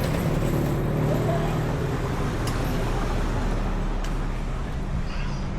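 Street traffic noise, with a motor vehicle's engine running steadily close by.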